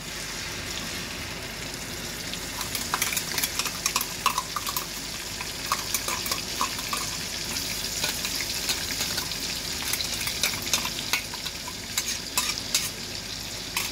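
Tomato-onion masala paste sizzling as it is spooned into hot oil with cumin and asafoetida in a steel kadhai, a steady hiss that builds about a second in. A spoon scrapes and clicks against the steel container throughout.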